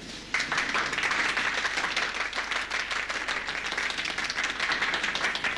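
Crowd applauding, a dense patter of many hands clapping that starts suddenly about a third of a second in and keeps going steadily.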